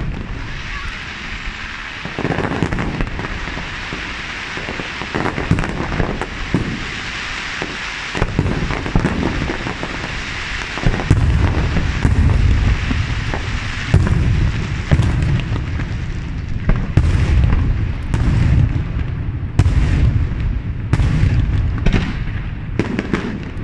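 Aerial firework shells from an Itria Fireworks display bursting in rapid succession, with a crackling hiss under the reports. The barrage grows heavier and deeper from about eleven seconds in, then thins near the end.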